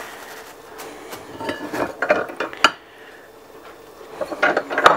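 Metal tortilla press being handled, closed and pressed: clanks and knocks of the lid and lever, in two groups, about two seconds in and again near the end.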